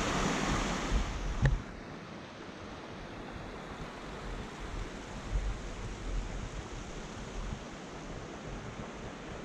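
Small mountain creek running over rocks. About a second and a half in it cuts off with a click, and quieter wind takes over, with low gusts buffeting the microphone.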